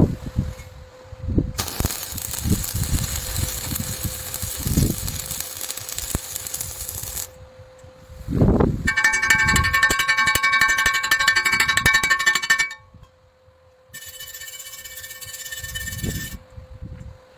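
Welding arc crackling and hissing in three bursts of a few seconds each, the second the loudest, with a dense rapid crackle.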